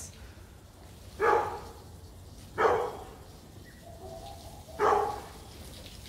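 A dog barking three times, single barks one to two seconds apart.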